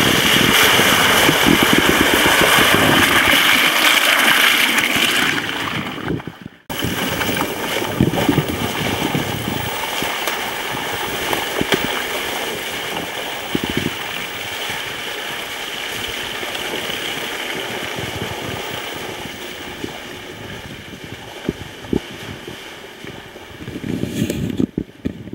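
Electric off-road golf cart driving over a rough woodland trail: a steady rushing noise with irregular knocks and thumps as it goes over bumps and ruts. The sound cuts out sharply for a moment about six and a half seconds in, then carries on a little quieter.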